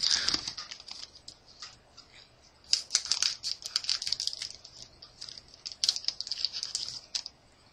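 Trading cards and a booster-pack wrapper being handled: runs of crisp crinkling and clicking, in three bursts, at the start, in the middle and near the end.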